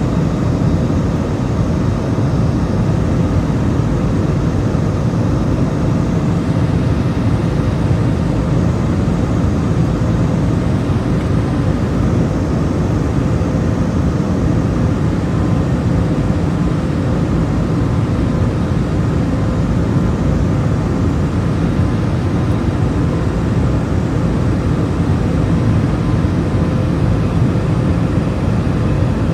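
Airbus A320-200 cabin noise heard from a window seat over the wing: the steady roar of the jet engines and airflow during the climb after takeoff, deep and even with no change.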